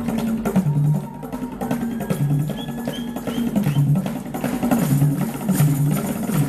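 Live band music with several hand frame drums beaten in a rhythm, over electric guitar and a bass guitar playing a repeating bass line.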